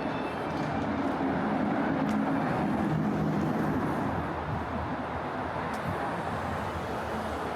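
Street traffic: a passing vehicle's engine gives a low hum that swells about a second in and eases off after about four seconds, over a steady wash of city noise.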